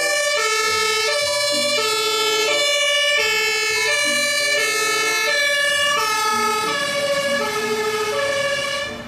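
German fire engine's two-tone siren, alternating steadily between a high and a low note about every half second, as the truck pulls out on an emergency call. It fades near the end.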